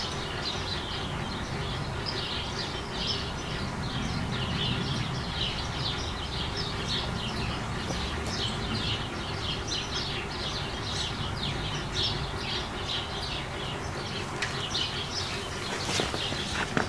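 Small birds chirping rapidly and repeatedly over a steady low background rumble, with a sharp click near the end.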